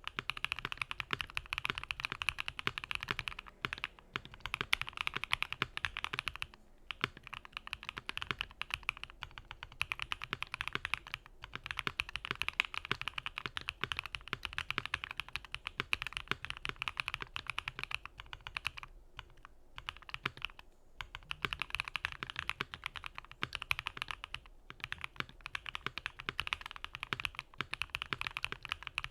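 Keychron Q1 mechanical keyboard with JWK Quartz linear switches, a PE foam mod and GMK ABS keycaps being typed on quickly: a continuous stream of keystroke clacks broken by short pauses, with a longer lull about two-thirds of the way through.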